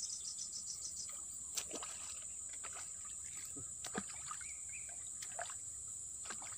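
A hooked snakehead splashing at the water's surface as it is reeled to the bank: a few sharp splashes, the clearest about one and a half seconds and four seconds in, over a steady high insect drone.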